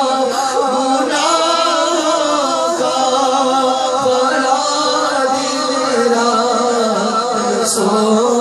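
A man singing a naat, an Urdu devotional song, drawing out long melismatic notes with a wavering pitch between the words of the line.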